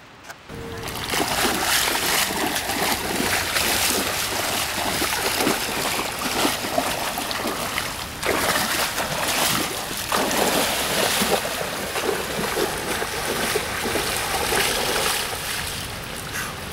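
Shallow creek water splashing and rushing as a person wades through it, feet sloshing and stepping in the water, with irregular sharper splashes.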